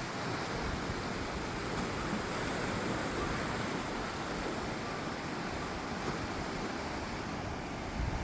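Steady rushing noise with no distinct events, and a brief low thump near the end.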